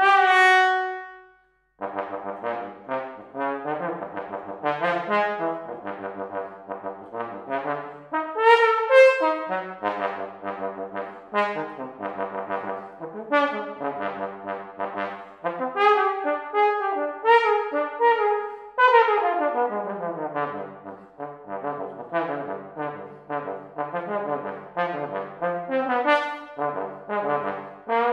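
Solo trombone playing a fast, jumpy contemporary piece: a held note stops, then after a brief pause come quick detached notes leaping between low and high registers. About 19 seconds in there is a falling run.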